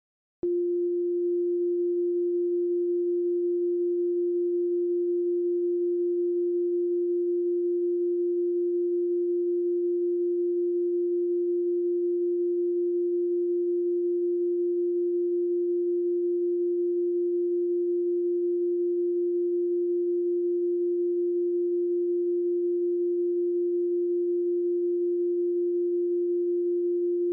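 A single steady electronic sine tone at one unchanging pitch, starting abruptly about half a second in and held at a constant level, with a much fainter higher tone above it.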